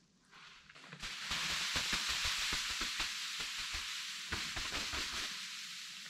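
Snow sliding off a reflective tarp as it is pushed up from underneath: a long hissing rush with small crackles and soft thumps. It starts suddenly about a second in and fades out near the end.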